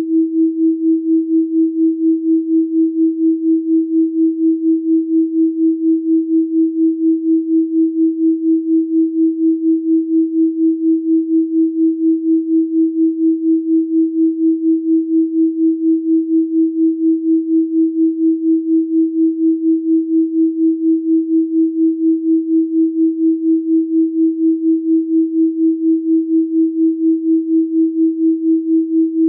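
A continuous pure sine tone at 324 Hz, holding one steady pitch. Its loudness pulses evenly a few times a second, a beating like that of a binaural-beat track.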